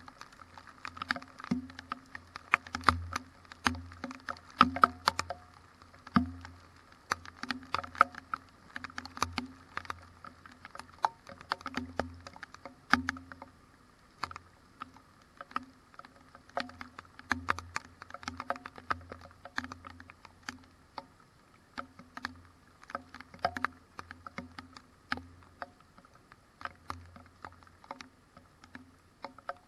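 Irregular sharp taps of raindrops striking the GoPro camera and its housing in a windy thunderstorm, several a second, each with a short hollow knock.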